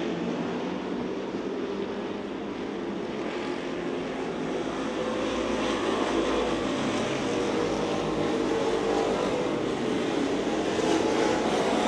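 Engines of several street stock race cars running hard around a dirt oval, a steady drone that gets a little louder over the last few seconds.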